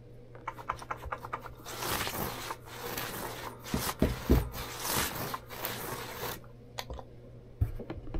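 A cat brushing and rubbing against the camera: irregular scratchy rubbing and rustling close to the microphone, with two low thumps about four seconds in.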